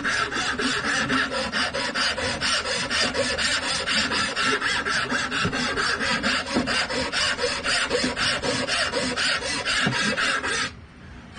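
Hand file stroking back and forth on the edge of a poplar board's cut-out hand slot, in a steady rhythm of about four strokes a second, stopping suddenly near the end.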